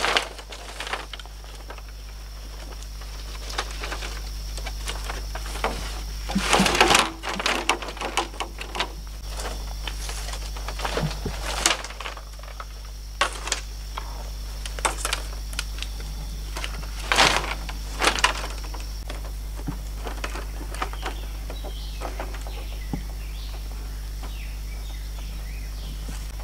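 Split bamboo strips clattering and knocking against each other and the frame as they are carried and stood upright, with a dense clatter about a quarter of the way in and scattered knocks after. It grows quieter in the last third.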